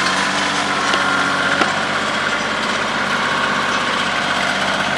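Engine of heavy equipment running steadily at a constant speed, with one short knock about a second and a half in.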